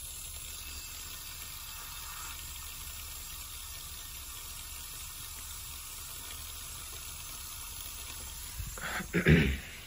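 Steady rush of water running through the tubing and rotameter of a pipe-flow test rig, set to about 0.51 gallons per minute. Near the end there is a brief, louder rustle and bump.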